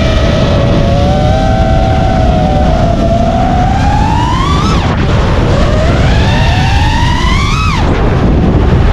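FPV quadcopter motors whining. Twice the pitch rises as the throttle is pushed up and then drops sharply as it is cut: about halfway through, and again near the end. Underneath is a steady low rush of air.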